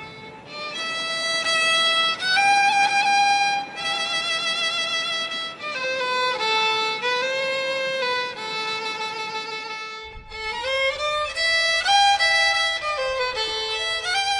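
Solo violin playing a slow melody, its notes wavering with vibrato and sliding between pitches. The playing pauses briefly about ten seconds in, and a low rumble joins underneath when it resumes.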